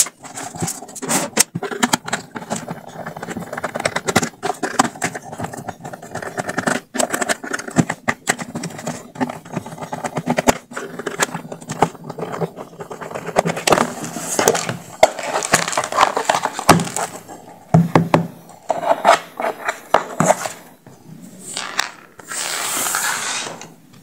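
Screwdriver turning screws out of a plastic Bluetooth speaker housing, with irregular clicks, scrapes and rattles of plastic being handled on the bench. A longer scrape comes near the end as the case is pulled open.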